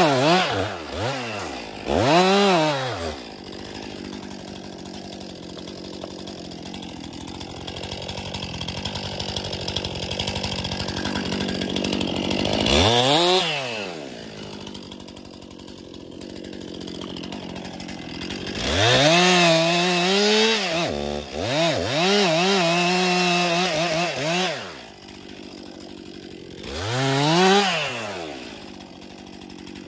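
Two-stroke chainsaw working on a spruce tree: the engine is repeatedly revved up hard and let back down, with quieter spells of idling between the bursts.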